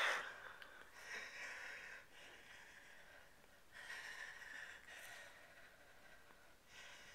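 A pet making faint, breathy noises in several bouts of about a second each, a weird noise from the animal.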